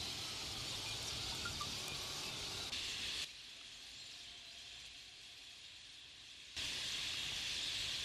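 Massed calling of a huge flock of red-billed starlings, many voices merging into a dense, high hiss. It drops away abruptly about three seconds in and comes back just as suddenly near the end.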